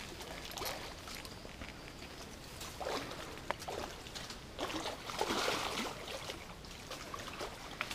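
Quiet riverbank sound: faint trickling water, with a few light clicks and short rustles, the longest about five seconds in.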